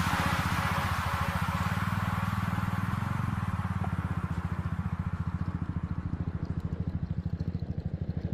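Motorcycle engine running at low revs with a fast, even pulsing beat, while a hiss fades away over the first few seconds.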